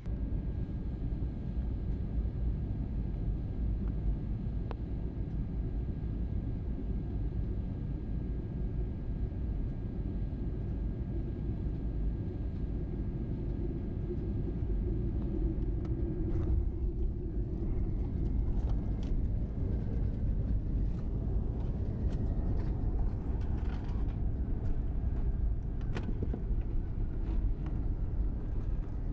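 Steady low rumble of a moving vehicle, with a few faint clicks in the second half.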